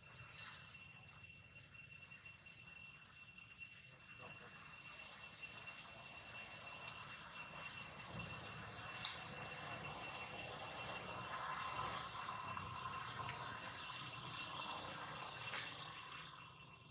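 Insects buzzing steadily at two high pitches, with a fast run of short ticking chirps over the top.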